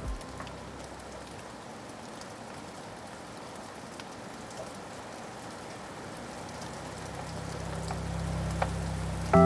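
Steady rain falling, an even hiss with a few scattered drips. A low tone swells in near the end.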